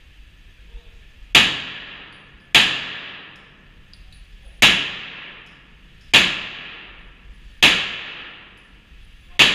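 Six pistol shots fired one at a time at a slow, uneven pace, each sharp report followed by about a second of echo.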